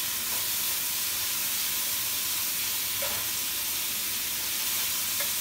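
Seasoned oxtail browning in a little oil in a stainless steel frying pan, sizzling steadily, with a couple of faint clicks about three seconds in and near the end.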